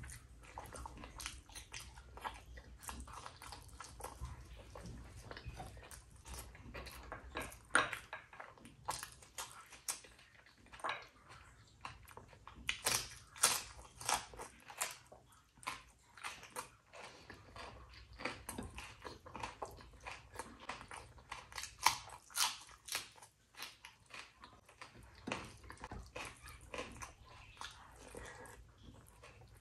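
Close-up chewing and wet mouth smacking of someone eating rice and curry, with many irregular sharp clicks, some of them louder near the middle.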